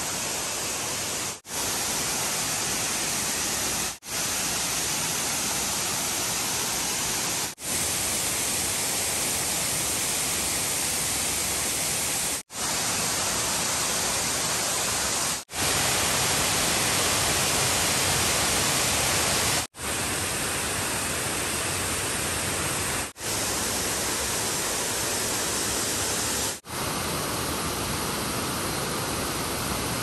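Waterfall: a steady, even rush of falling water that breaks off in brief drop-outs every few seconds, about eight times.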